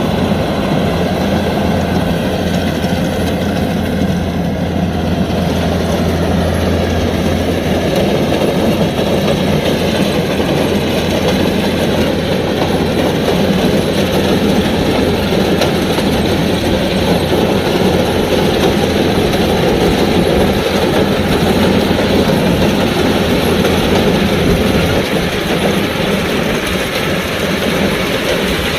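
Kubota DC-105X combine harvester running steadily as it harvests rice: its diesel engine and threshing machinery make a loud, continuous mechanical din.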